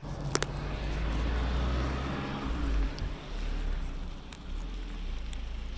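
A car driving along a paved road, heard over wind rumbling on the microphone.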